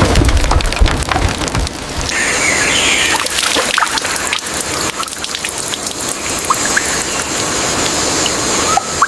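Heavy rain falling, a dense patter of drops, with a low rumble of thunder in the first two seconds. About two seconds in, a steady high-pitched hiss joins the rain.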